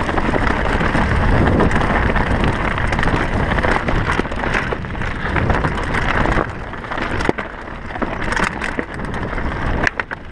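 Mountain bike riding fast downhill over a dirt and loose-stone trail: wind buffeting the microphone, tyre noise and frequent clicks and rattles from the bike over the rough ground. It gets somewhat quieter about six seconds in.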